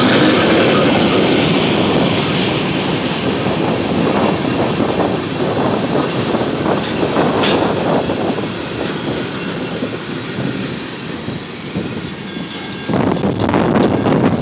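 Empty freight cars of a unit sand train rolling past slowly, steel wheels clicking and clattering over the rail joints. Wind gusts buffet the microphone, with a sudden louder gust near the end.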